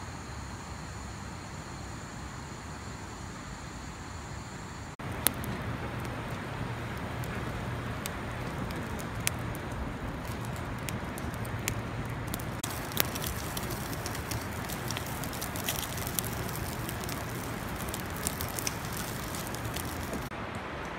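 A steady low hum with faint high whining tones, then, after a sudden change about five seconds in, a wood fire crackling with sharp irregular pops over a steady rushing noise.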